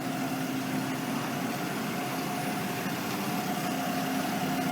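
A motor idling steadily with a constant hum, over a steady wash of street noise.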